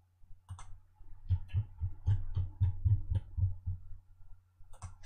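Computer mouse clicking: a run of quick clicks with low knocks, about four a second, starting about a second in, with a last click near the end.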